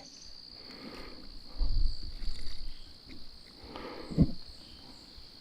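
Steady high chirring of crickets, with a low thump about two seconds in.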